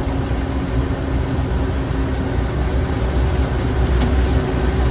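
Combine harvester running and laboring as it tries to push forward through thick weeds, its corn head's stalk rollers wrapped up with weeds. A steady low drone with a hum, swelling slightly partway through.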